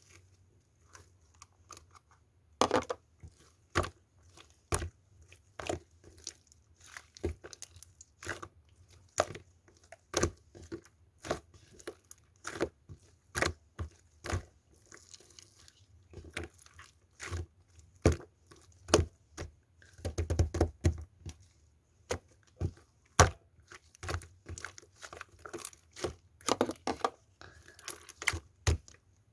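Slime being handled and squeezed, giving sharp sticky pops and crackles about once or twice a second, with a quick run of crackles about two-thirds of the way through.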